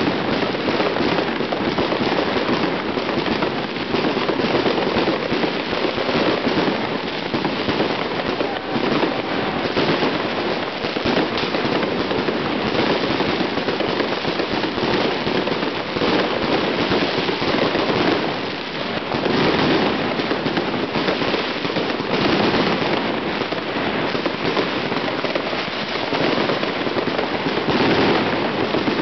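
Fireworks going off in rapid succession: a dense, unbroken crackle of many small bangs and pops at a steady level.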